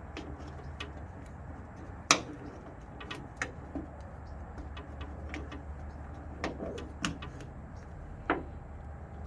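Sharp clicks and small knocks of plastic push-pin hood clips being pried out with a trim-clip removal tool, the loudest snap about two seconds in, over a steady low hum.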